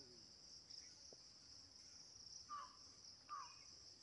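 Faint, steady high-pitched chorus of insects, with two short falling chirps a little under a second apart past the middle.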